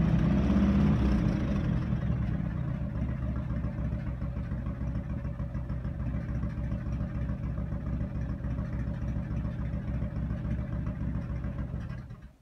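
Harley-Davidson FXR's V-twin engine idling with an even, lumpy pulse, fitted with a new open air cleaner and new spark plug wires. It is a little louder for the first second or so, then settles to a steady idle, and cuts off just before the end.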